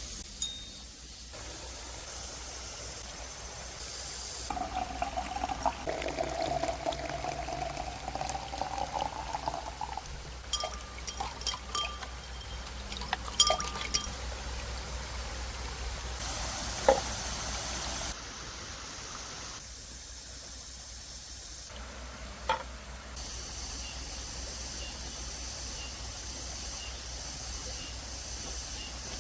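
Liquid being poured into a container for several seconds, its pitch slowly rising as it fills. It is followed by light clinks and knocks of cooking utensils over a steady outdoor background.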